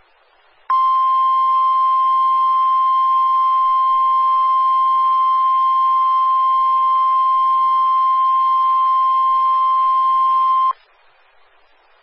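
NOAA Weather Radio 1050 Hz warning alarm tone: a single steady high tone that starts just under a second in, holds for about ten seconds and cuts off sharply. It signals that a watch or warning message is about to be broadcast, here a tornado watch.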